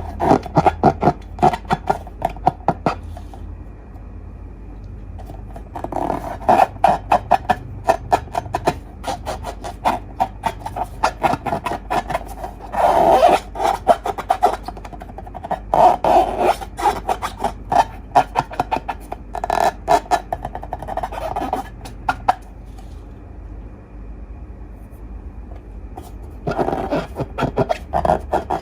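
Slime being squished and stretched by hand: bursts of sticky crackling and popping clicks, with a few quieter pauses between them.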